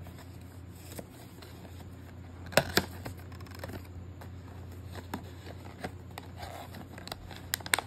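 Small cardboard box being handled and its flaps opened: light scrapes and ticks of paperboard, with a sharper cluster of clicks about two and a half seconds in and a few more near the end.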